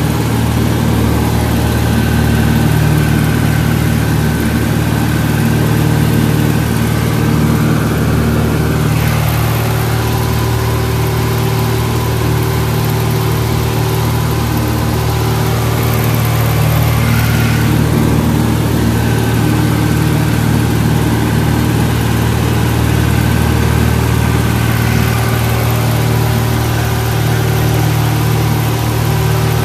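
Cessna 172's piston engine and propeller droning steadily in flight, heard from inside the cabin.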